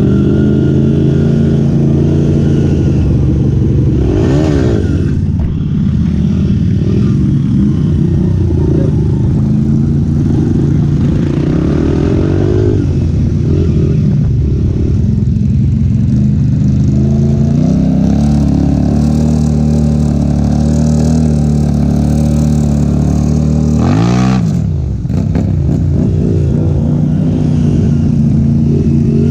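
Off-road motor vehicle engine running under way while riding, its note holding steady for long stretches. Twice, about four seconds in and again near the end, the revs drop and climb back up as the throttle is let off and opened again.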